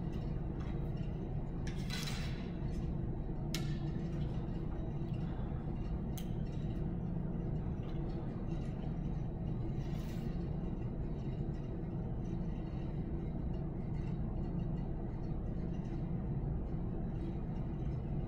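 Steady low hum, with a few faint clicks and a soft rustle about ten seconds in as a compound bow is handled, an arrow nocked and the bow drawn to full draw.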